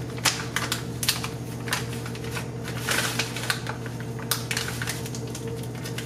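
Irregular crinkling and ticking of a seasoning packet being torn open by hand over thin plastic grocery bags, with a steady low hum underneath.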